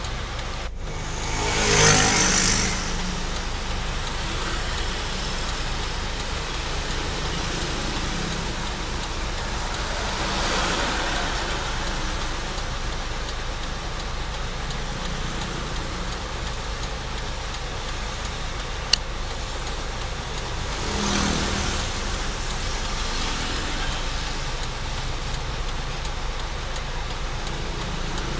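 Street traffic at a junction: a steady hum of engines and tyres. A vehicle passes close by about two seconds in, the loudest moment, and two more pass later. There is one sharp click partway through.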